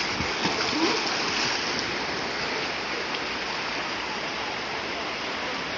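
Mountain valley stream, its water rushing steadily.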